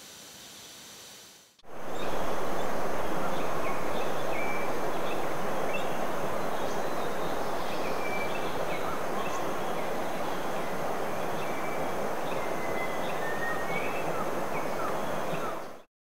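Rainforest ambience. After a faint hiss, a loud, steady rushing noise sets in about a second and a half in, with short high bird chirps scattered over it. It cuts off suddenly just before the end.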